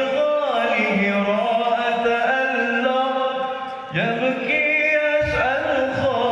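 A man singing an Arabic devotional qasidah in a Middle Eastern muezzin-like style: long held notes with ornamented melismatic turns. A new phrase starts with a rising swoop about four seconds in.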